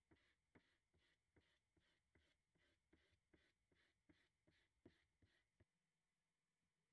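Faint, rhythmic scratching of a hand sanding block with sandpaper rubbed back and forth over a wooden record-player case, about three strokes a second. The strokes stop about a second before the end.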